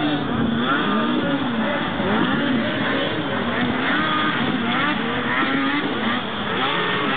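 Several racing snowmobiles' two-stroke engines revving up and down on a snocross course, the pitch rising and falling over and over as they hit the throttle and back off.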